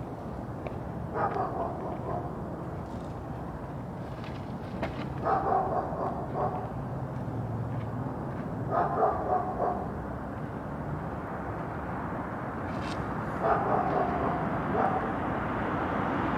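A dog barking in four short bouts a few seconds apart, over a steady low background rumble.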